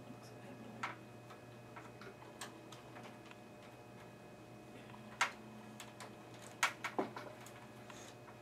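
Scattered sharp plastic clicks and taps of cable connectors being unplugged from a desktop computer's motherboard, the loudest about five and seven seconds in, over a faint steady hum.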